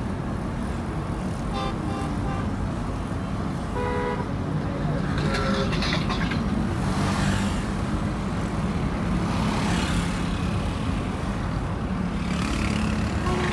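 Steady road and engine rumble heard from inside a moving car's cabin, with short horn toots from surrounding traffic about two and four seconds in, and other vehicles swelling past.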